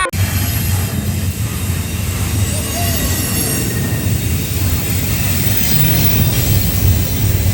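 Train rolling past with a steady low rumble and wheel noise.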